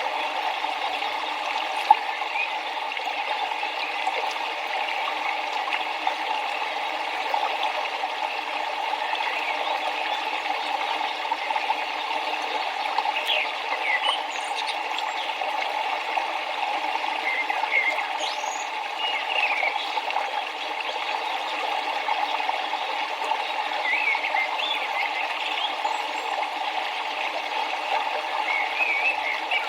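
River water running steadily, with short bird chirps now and then above it, more of them in the second half. A single sharp tick about two seconds in.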